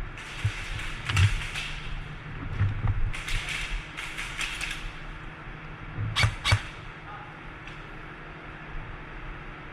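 Rustling and movement noise from a player's gear during an airsoft game, with dull low thumps and two sharp cracks close together about six seconds in.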